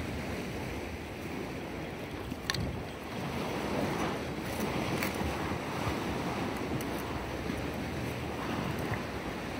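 Sea water washing against a concrete sea wall, with wind buffeting the microphone. A few small clicks sound over it, the sharpest about two and a half seconds in.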